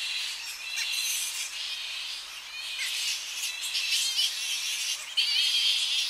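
Colony of Tonga flying foxes calling: dense, overlapping shrill chattering and squawks, louder from about five seconds in.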